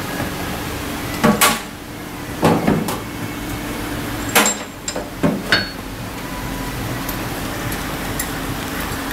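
A series of sharp knocks, like tools striking or being set down on metal, mostly in pairs spread over a few seconds, over a steady background hum.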